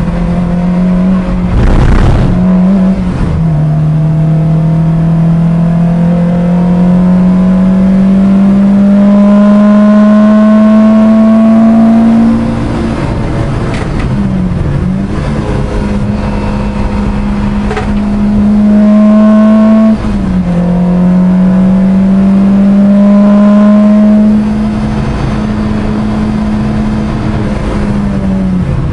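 Track car's engine heard from inside the cabin under hard acceleration: the engine note climbs slowly and steadily for several seconds at a time, then falls sharply as the driver lifts and changes gear, about four times.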